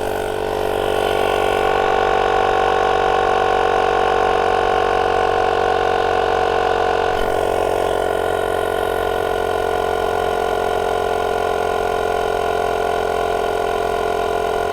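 Built-in air compressor of a JF EGWO 1000A jump starter running steadily as it pumps up a tyre, then stopping suddenly at the end as its nearly flat battery gives out.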